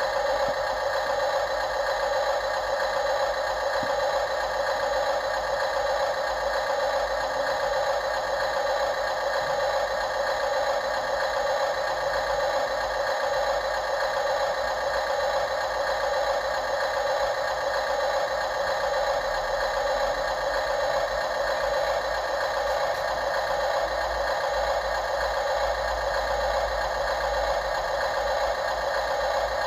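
Radio-controlled construction model running: a steady mechanical drone with rattling.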